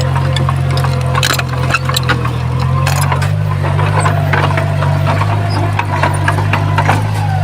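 Heavy earthmoving machine's diesel engine running steadily, with scattered cracks and clatters of stone and soil. The engine note shifts slightly about three seconds in.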